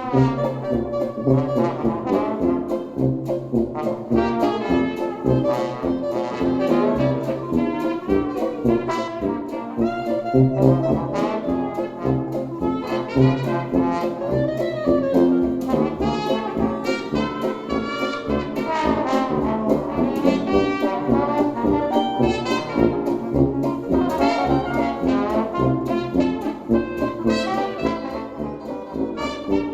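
A jazz piece led by trombone, with a steady beat underneath, played back through Klipsch R-51M bookshelf speakers.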